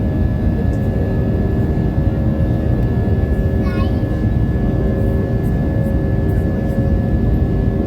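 Jet airliner cabin noise: a loud, steady engine and airflow drone with a few steady hum tones. A brief high chirp sounds about halfway through.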